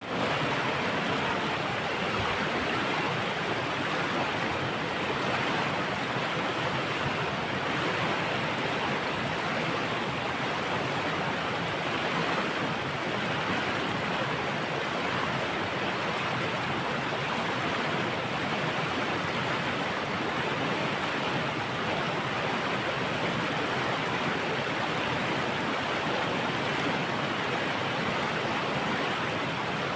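Water flowing steadily over a dam: a constant, even rushing with no breaks or separate splashes.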